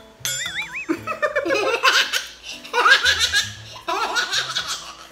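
Two people laughing hard together in three long fits of quick, pulsing bursts, over background music. A brief wavering, whistle-like tone sounds just before the laughter starts.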